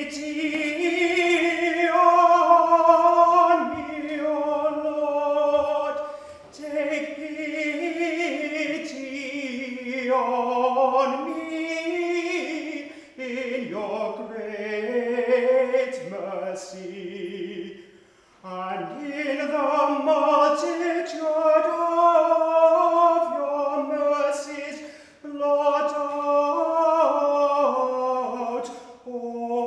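A man's solo voice singing unaccompanied: a slow chant-like melody of long held notes with vibrato, in phrases broken by short pauses for breath.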